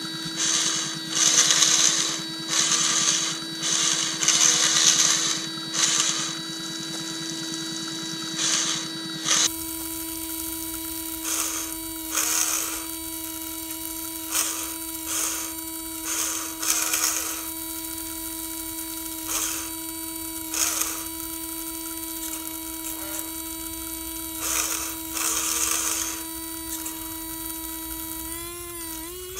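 The small electric water pump of an RC fire truck whines steadily at one pitch while it sprays water. Repeated short bursts of hissing spray are heard over the whine, and the whine's pitch wavers near the end.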